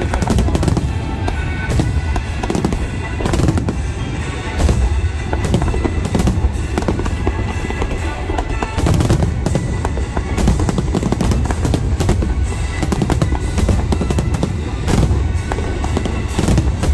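Aerial fireworks display: many shells bursting in quick succession, their booms and crackles overlapping with no break.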